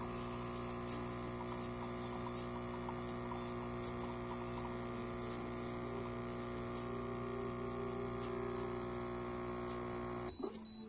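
Espresso coffee maker's pump humming steadily while brewing, then stopping abruptly about ten seconds in.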